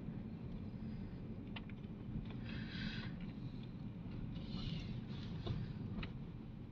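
Steady low road and engine rumble inside the cabin of a moving Vauxhall Vectra taxi, with two brief swells of hiss and a few faint clicks.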